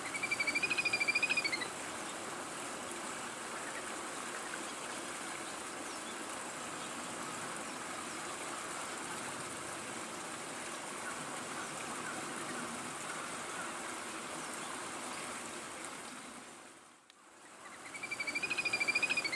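Steady rush of flowing water. A short warbling chirp comes at the start and again at the very end, and the sound fades out briefly about 17 seconds in.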